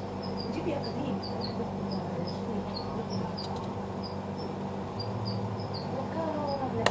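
Short high chirps, two or three a second, over a steady low hum, with one sharp click near the end.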